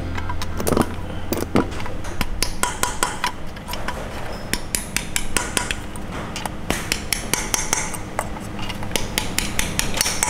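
Rapid light metallic taps of a small hammer on a valve stem seal driver, pressing new valve stem seals onto the valve guides of a BMW 30d diesel aluminium cylinder head. The taps change in sound once a seal is fully seated on its guide.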